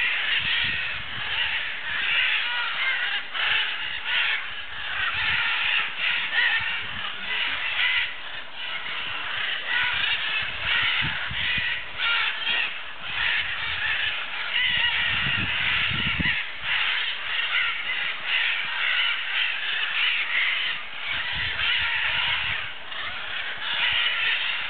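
A large flock of red-and-green macaws calling together: a dense, continuous chorus of harsh, overlapping squawks.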